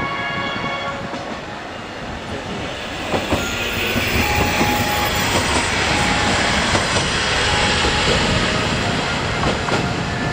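KiRo 185-series diesel railcar starting off slowly, its diesel engine running up and getting louder from about two seconds in, with a few sharp clicks from the wheels and track.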